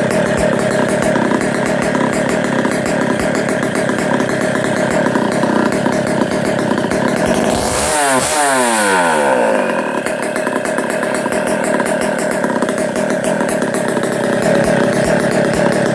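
Rebuilt K99 135cc two-stroke rotary-valve kart engine, fed by twin 27 mm Tillotson carburettors on gasoline, running steadily during its break-in run. About halfway through its tone sweeps briefly.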